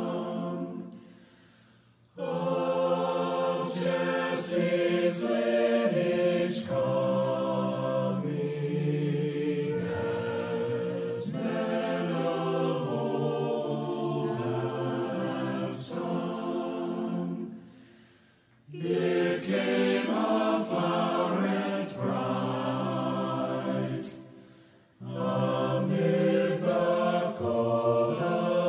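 A choir singing a slow chant in long held phrases, with three short breaks between phrases.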